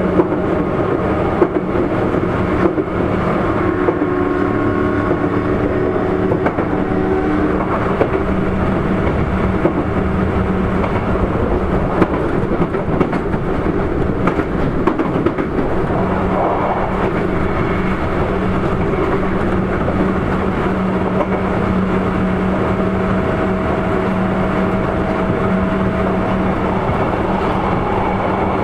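Sotetsu 8000 series electric train running on the line, heard from inside a car: a steady rumble of wheels on rail with scattered sharp clicks over the rail joints, and a steady motor hum with a few shorter, higher tones in the first several seconds.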